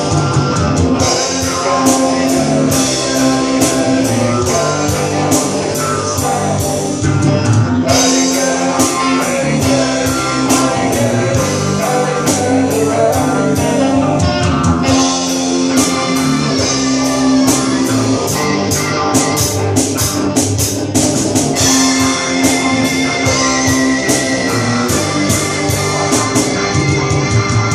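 Live rock band playing with electric guitars, electric bass and drum kit, the cymbals struck in a steady beat. A held, wavering high note comes in over the band in the last few seconds.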